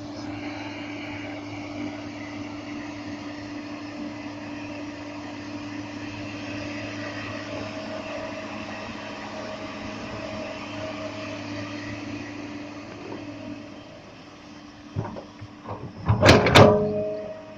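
Excavator running with a steady engine and hydraulic hum, then a burst of loud knocks near the end.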